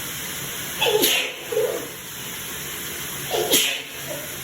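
A person sneezing twice, about a second in and again near the end, each a short vocal lead-in ending in a sharp burst, over the steady spray of a running shower. It is part of a long sneezing fit that the person puts down to a sensitivity to a scented soap.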